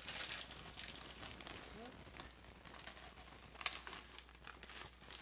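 Parchment paper being peeled off the side of a baked loaf of bread, crinkling and rustling in a run of small crackles, with a louder crackle about three and a half seconds in.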